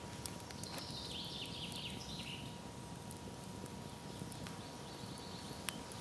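Campfire of hazel sticks burning, with irregular sharp crackles and pops over a low steady rustle of flame. A short high twittering call sounds about a second in, and a fainter one near the end.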